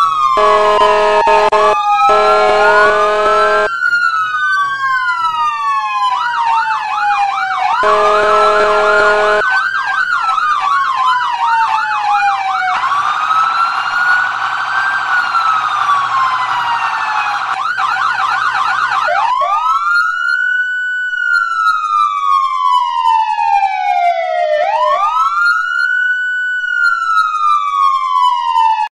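Electronic siren sounding loudly, with slow wails that rise and fall alternating with fast yelping stretches. In the first half a few steady sustained tones sound under it. The last ten seconds are slow wails alone, and the siren cuts off abruptly at the end.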